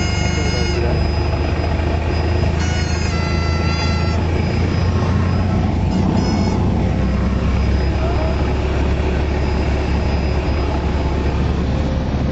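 Cessna 172's piston engine and propeller heard from inside the cabin in flight: a loud, steady drone that does not change.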